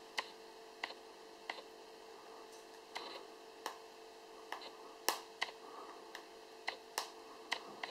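Fingernails picking at the edge of a smartphone's protective screen film, giving about a dozen sharp small clicks at irregular intervals, with a faint rustle of the film now and then.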